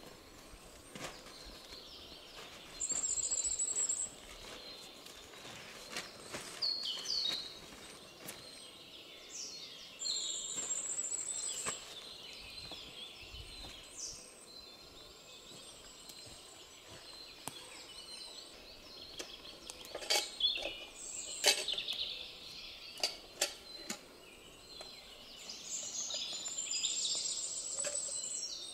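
Small forest songbirds singing: high, rapid trills repeated three times, with scattered chirps in between. A few sharp knocks about two-thirds of the way through are the loudest sounds.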